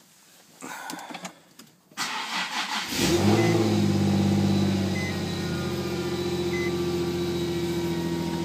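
Cold start of a 2008 Infiniti G35's 3.5-litre V6 in sub-zero weather: the starter cranks for about a second, the engine catches about three seconds in and flares to a high idle, then settles to a steady fast idle. A short electronic beep sounds three times, about a second and a half apart.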